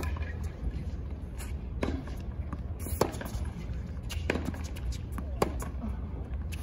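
Tennis rally: tennis ball struck by rackets back and forth, a sharp hit about every second, the loudest about three seconds in, over a steady low crowd and venue hum.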